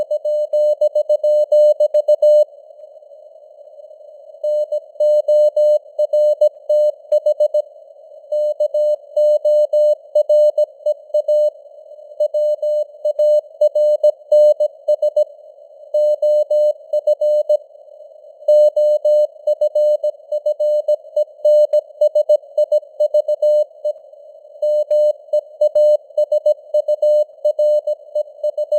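Morse code (CW) at about 17 words per minute: a steady mid-pitched tone keyed on and off in dots and dashes over a hiss of simulated radio noise, with a few pauses of a second or two between groups of characters.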